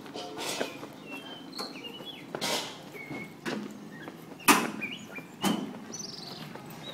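Footsteps of someone walking on a paved lane, a step roughly every second with a louder one about four and a half seconds in.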